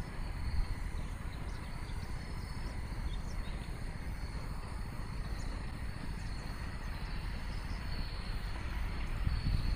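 Outdoor ambience: wind rumbling on the microphone, unsteady and low, with insects chirping faintly and steadily in the grass.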